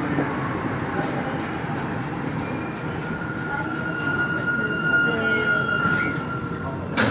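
Metro train running into a station and braking, with a high steady squeal that sets in about two seconds in and stops near the end, followed by a sharp knock.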